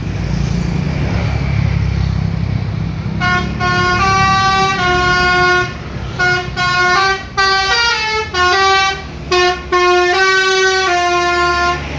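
Bus engine running with a low rumble, then from about three seconds in a manually played Basuri telolet horn sounds a tune of held, stepped multi-tone notes with short breaks between phrases.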